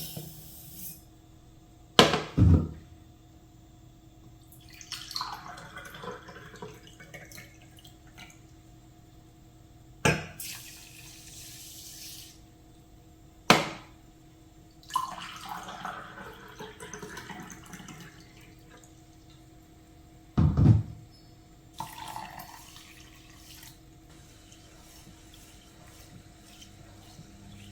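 Water running and splashing into a kitchen sink in short spells of a few seconds each, with about half a dozen sharp knocks of things set down or handled at the sink between them.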